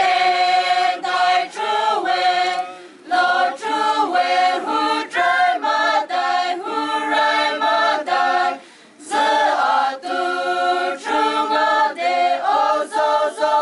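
A group of men and women singing together without instruments, a traditional chant-like song in held notes and short phrases. The singing breaks briefly about three seconds in and again around eight and a half seconds.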